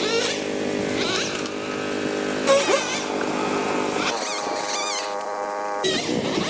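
An engine running steadily, its pitch stepping up and down a few times, with short wavering higher-pitched sounds over it.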